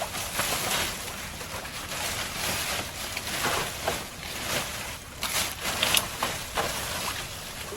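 Water splashing and sloshing in irregular bursts, with a few sharp clicks.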